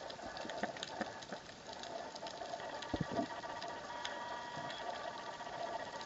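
Underwater ambience recorded by the camera: a steady crackle of many small, sharp clicks over a faint hiss, with a thin steady hum and a couple of soft low thumps about three seconds in.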